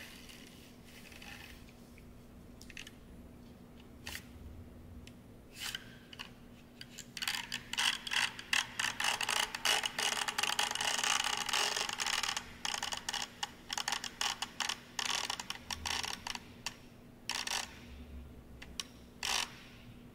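Ratchet-like clicking and crackling: a few single clicks, then a dense rapid run of clicks for about five seconds in the middle, thinning out again to scattered clicks, over a faint steady hum.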